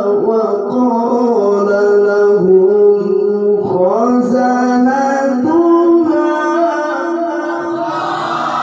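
A man reciting the Quran in the melodic tilawah style, unaccompanied, through a microphone and loudspeakers: long held notes joined by ornamented turns and wavering pitch, with hall reverberation.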